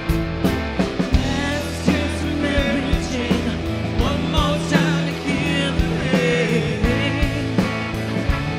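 Live rock band playing: electric guitar, keyboard and drums over a steady beat, with vocals coming in about two seconds in.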